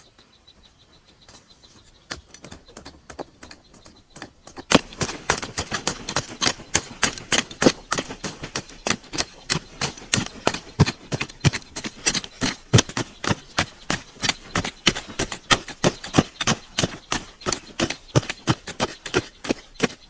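Hoe blades chopping into hard, dry soil: a few scattered strikes, then from about five seconds in a fast, uneven run of sharp chops, about three or four a second.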